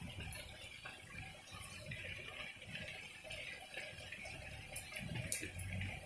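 Heavy rain falling on paved ground and leaves, an even hiss with scattered sharp ticks of drops and a low rumble underneath.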